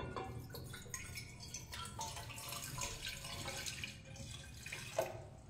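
A mug of water poured out, splashing and trickling for several seconds, with a single sharp knock near the end.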